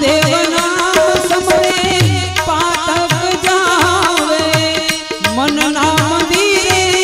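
Gujarati devotional bhajan music: a harmonium playing an ornamented melody over a steady tabla beat.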